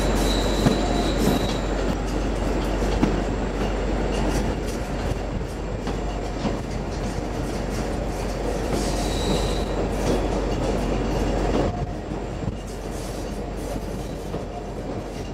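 Train running along the rails, heard from on board: a steady rumble and rattle of the moving carriage, with a thin high wheel squeal that comes and goes twice. The sound drops a little in level about 12 seconds in.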